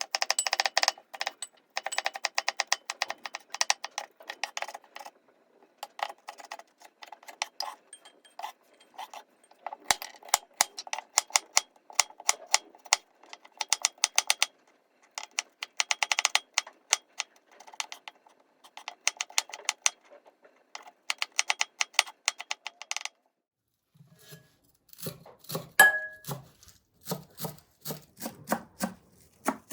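Quick runs of small clicks and clinks from kitchen utensils during breakfast preparation. They stop briefly about 23 seconds in, and different, heavier knocks follow.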